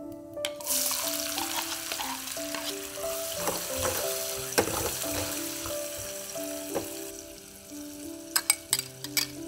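Chopped onion hitting hot oil with cumin seeds, setting off a loud sizzle about half a second in that carries on as it is stirred with a metal ladle. Near the end, a run of sharp clinks from the ladle as ginger, garlic and green chili are added.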